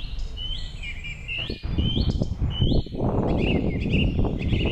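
Birds singing in a forest morning ambience: one bird repeats a short rising whistled note four times, followed by other twittering, over a low rumble that grows louder about a second and a half in.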